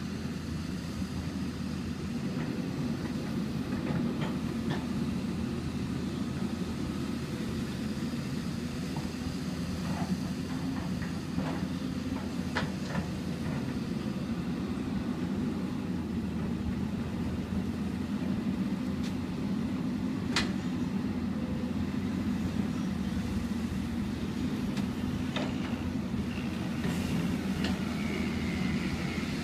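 Hyundai 200LC-9 excavator's diesel engine running steadily, with a few sharp clicks or knocks over it, the clearest about twenty seconds in.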